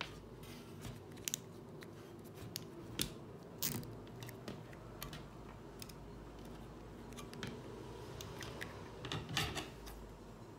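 Small handling sounds of a nylon cable tie being threaded and fastened around an ESC on a plastic drone frame arm: scattered light clicks and plastic ticks, with a short cluster of clicks a little after nine seconds in.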